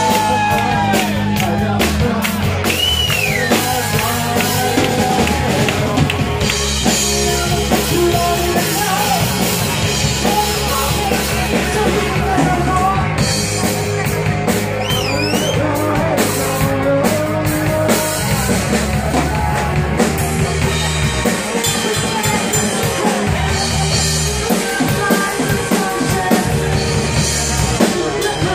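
Live rock band playing loudly: a drum kit driving the beat under singing.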